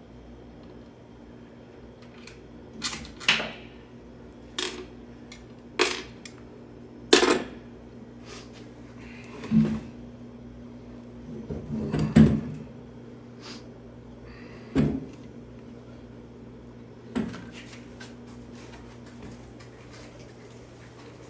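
Irregular metal clanks and knocks, about ten of them with a longer scraping rattle around the middle, as tools and air compressor pump parts are handled and the pump is lifted. A faint steady low hum runs underneath.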